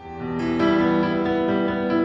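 Background music with piano or electric keyboard, starting abruptly at the end screen.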